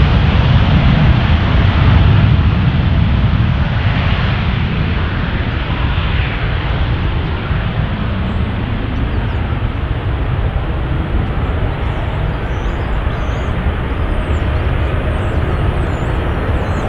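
Boeing 787-8 Dreamliner's GEnx-1B turbofan engines at takeoff thrust: a loud, steady jet roar with heavy low rumble, slowly fading as the aircraft accelerates away down the runway.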